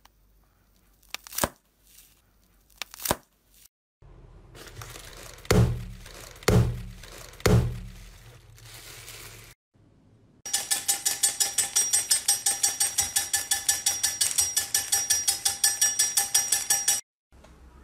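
Foil crinkling under squeezing fingers, with a few sharp crackles, then three thumps as hands press a foil balloon packed with water beads. After a short gap, a candy-cutting machine chops hard candy with a fast, even clicking, about seven cuts a second, over a steady whine.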